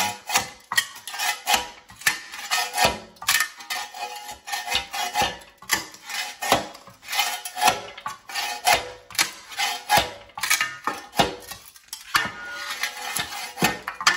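Steel shovel blade scraping and grating along a bare concrete floor in repeated strokes, with sharp knocks and clatters as it is jammed under nailed-down carpet tack strips and prises the wooden strips and their nails up.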